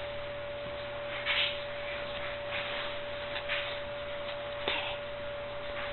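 A few soft, breathy puffs as an Irish setter mouths a small orange, with one short click a little before the end. A steady high-pitched hum tone runs underneath throughout.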